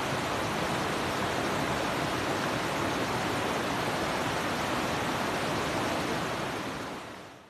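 Steady rush of a waterfall's falling water, fading out over the last second or so.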